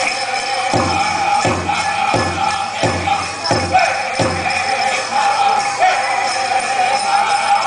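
Powwow drum group singing in high voices over a big drum struck about every 0.7 s, with the beats stopping about halfway through. Dancers' bells jingle steadily throughout.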